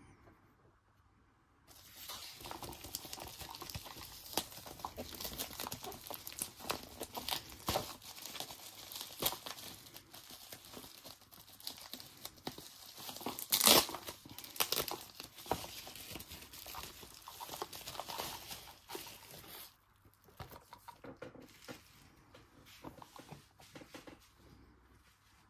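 Bubble wrap being torn and crinkled off a small boxed item: dense crinkling and tearing with many small crackles, starting about two seconds in, with one sharp loud crack near the middle. It eases off a few seconds before the end into quieter handling with scattered light clicks.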